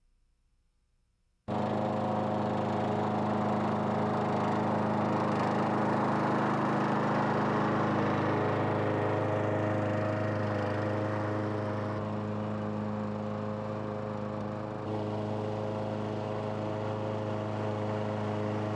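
Engine running steadily at an even pitch, cutting in abruptly about a second and a half in.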